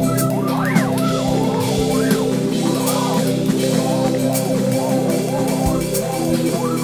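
Experimental noise/free-improvisation music: a sustained synth chord drones underneath while swooping tones glide up and down over it again and again, with scattered clicks. The held chord shifts about six seconds in.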